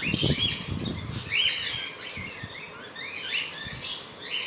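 Small parrot chick chirping over and over in short, rising calls, a few a second, as it is held for leg ringing.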